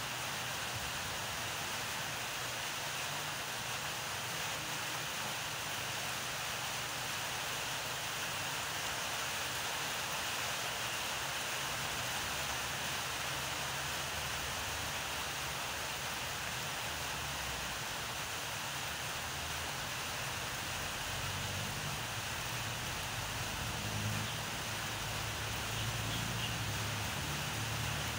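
Steady outdoor background hiss with no distinct events, joined by a faint low rumble in the last third.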